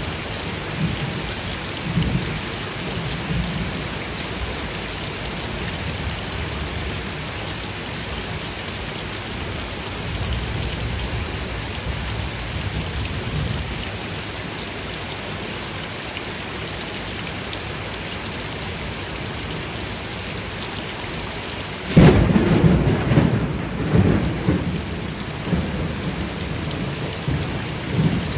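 Steady heavy rain in a thunderstorm, with low thunder rumbling in the first few seconds. About 22 seconds in a loud thunderclap breaks, followed by rolling rumble that runs on to the end.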